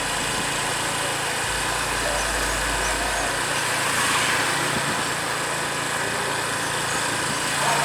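An engine running steadily, with a low hum that comes in for a couple of seconds about a second and a half in.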